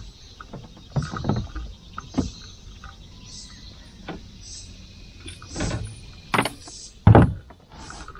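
Irregular knocks and bumps against a small fishing boat while a bass is fought and brought aboard, with the heaviest thump near the end.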